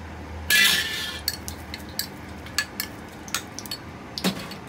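Metal spoon and wok spatula clinking and tapping against a porcelain bowl and a wok: a string of sharp separate clicks, after a brief loud rush of noise about half a second in.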